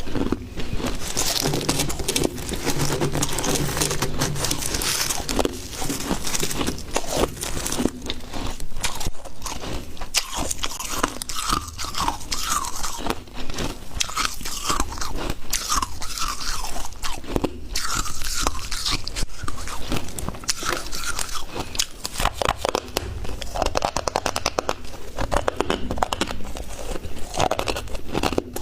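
Close-up crunching and chewing of freezer frost: dense, irregular crisp crunches as mouthfuls of packed frost are bitten and chewed.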